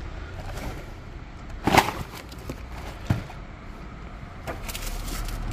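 A cardboard LEGO set box being handled: one sharp knock about two seconds in, a softer tap about a second later, and light scuffing near the end, over a low steady hum.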